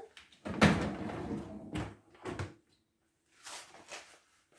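Knocks and a scraping rush of dishwasher parts being handled and fitted back into place, the loudest about half a second in and lasting about a second, followed by a knock and a few lighter clicks.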